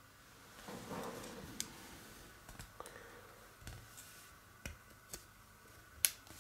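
Hobby cutting pliers snipping small plastic parts off a model-kit sprue: a short rustle of handling about a second in, then a series of sharp, irregularly spaced clicks as the cutters bite through the plastic, the loudest near the end.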